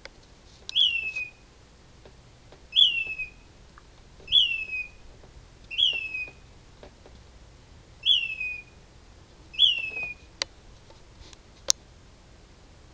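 A bird calling at night, a short falling whistle repeated every one and a half to two seconds, six times; it sounds kind of sad. A sharp click comes near the end.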